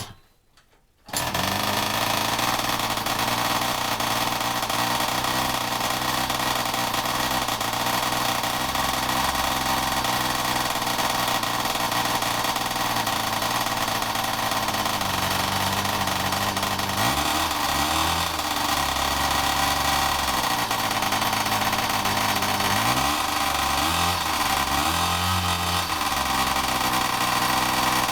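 The ZiD-36 Ptakha mini moped's rebuilt 36 cc two-stroke single-cylinder engine catches suddenly about a second in and keeps running steadily, with short rises in revs about halfway through and again a few seconds before the end. This is its first start after the engine rebuild.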